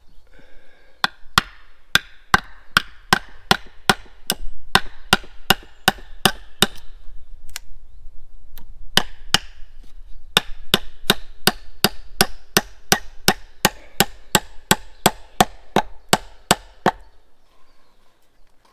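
Hammer driving nails into wooden supports: steady strikes about three a second, in two runs with a short pause between them, stopping near the end.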